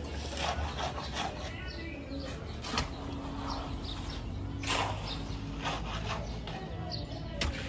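Long-handled hoe striking and scraping wet mud in a water-filled excavation pit: about six separate knocks and splashes, the loudest near the middle, over a low steady hum.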